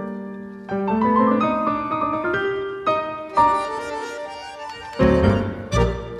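Instrumental background music led by piano, its notes climbing step by step, with strong deep notes coming in near the end.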